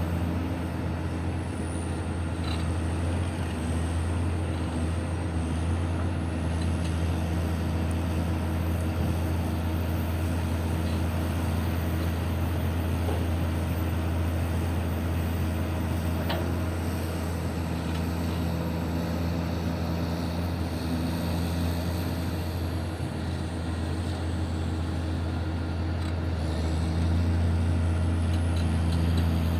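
Heavy diesel engine of mining machinery running steadily, a deep drone that grows a little louder near the end.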